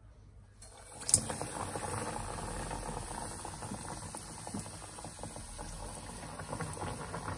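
A stuffed kachori dropped into hot oil in a steel pot for deep-frying. About a second in there is a sharp tap as it goes in, then the well-heated oil sizzles and bubbles steadily around it.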